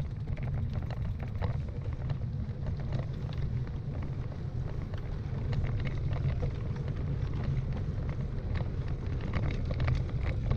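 Wheels rolling along a wooden boardwalk: a steady low rumble with scattered clicks and knocks as the tyres cross the planks.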